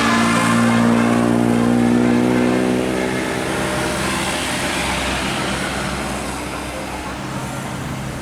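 Tour bus engine running as the bus drives past: a steady pitched drone, loud for the first three seconds or so, then fading as it moves away.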